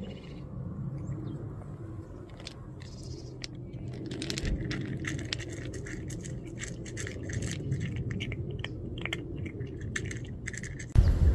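A cat crunching dry kibble from a ceramic bowl: quick, irregular crunches and clicks, thickest from a few seconds in. Just before the end a much louder low rushing noise cuts in suddenly.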